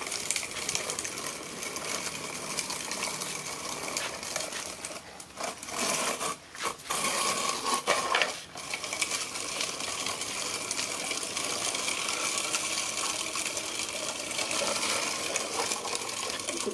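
Hard plastic wheels of a small toy truck rolling over rough concrete as it is pulled along, making a steady rattling grind, with brief dips in the middle.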